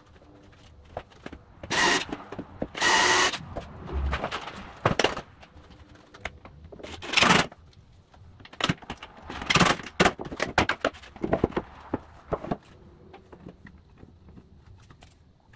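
Several short runs of a cordless drill, each up to about a second long, amid clicks and knocks of clamps and wooden drawer parts being handled.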